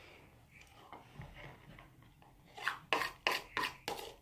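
Someone eating noodles from a plastic bowl with a fork: quiet for the first half, then a quick run of sharp clicks and taps, about three a second.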